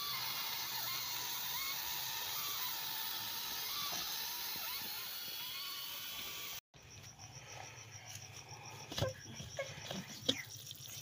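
Steady hiss from a pressure cooker heating on its gas burner, which cuts off abruptly about two-thirds of the way through. It gives way to a quieter background with a high, evenly repeated chirping and a few soft knocks.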